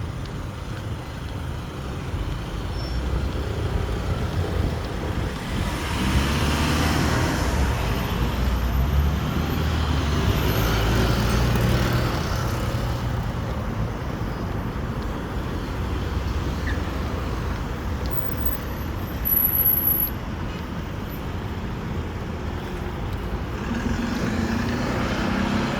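Road traffic: low engine rumble of motor vehicles, swelling as one passes close between about six and twelve seconds in.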